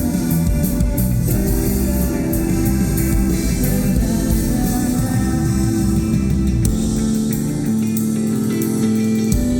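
Live rock band playing, with guitar to the fore. About seven seconds in, the drums and low end drop back and held guitar notes ring on.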